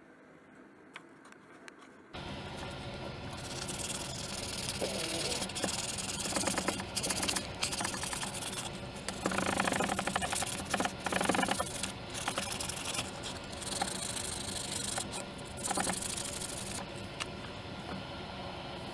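Abrasive scraping on a wooden knife handle worked by hand, in irregular strokes over a steady low hum; it starts suddenly about two seconds in.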